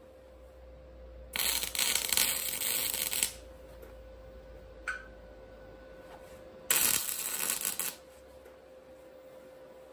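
MIG welding arc crackling on steel in two short tack welds, the first about two seconds long and the second just over a second, with a short click between them.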